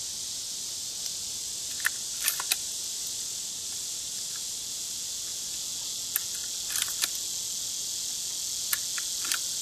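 Cartridges being pushed one at a time through the loading gate into the tube magazine of a Marlin 336Y .30-30 lever-action rifle, giving short metallic clicks in a few small clusters. Under them runs a steady high drone of insects.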